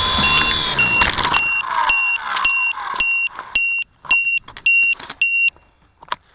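WLToys V912 RC helicopter's electric motor and rotor running, then hitting the ground about a second in and winding down in falling whines. After that a high electronic beep with a click repeats about twice a second and stops about five and a half seconds in, with a few faint knocks near the end.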